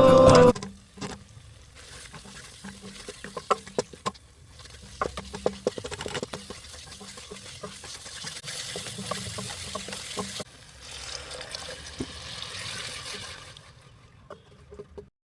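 A sung track ends abruptly about half a second in. Cooking in a pot follows: a spoon clicking and scraping as it stirs, over a steady hiss that stops briefly near the middle and fades out near the end.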